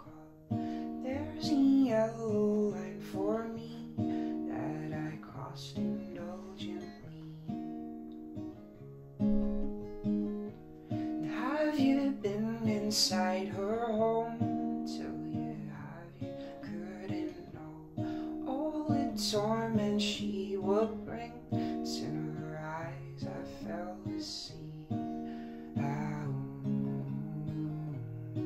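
Acoustic guitar played in a slow, steady accompaniment, with a man's voice singing drawn-out phrases over it at times but no clear words.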